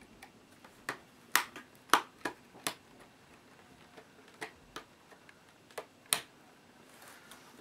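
Irregular sharp clicks and taps of small tools and parts being handled against a laptop's plastic case, about a dozen, spaced unevenly, several louder ones in the first three seconds and another about six seconds in.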